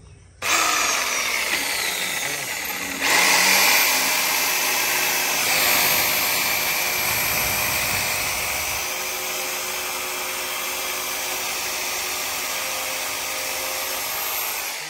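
IBL JS10-65 650 W electric jigsaw starting up and sawing through a bamboo pole. It switches on about half a second in, grows louder near three seconds in as the blade bites into the bamboo, runs steadily through the cut and tails off at the end.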